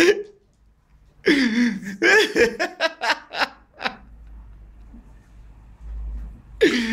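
A man laughing: a drawn-out laugh about a second in, then a run of short ha-ha bursts that stops about four seconds in. A voice starts again near the end.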